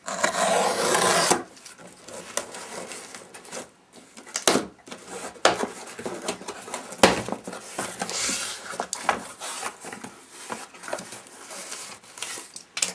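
A parcel being unpacked by hand: about a second and a half of ripping at the start, then scattered rustles, scrapes and knocks of packaging and items being handled.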